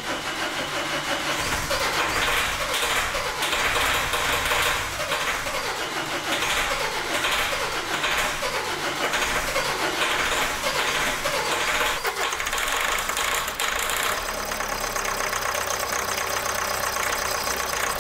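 Common-rail diesel engine of a Hyundai Grand Starex running just after being started, its speed rising and falling several times. It is in emergency mode after a cylinder-head job in which the valves struck the pistons and the fuel injectors had seized.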